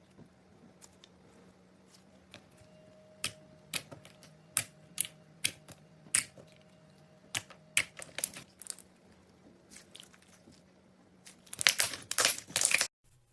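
Slime being pressed and worked by hand, giving sharp sticky pops and clicks at irregular intervals, then a quick dense run of crackling pops near the end that cuts off suddenly.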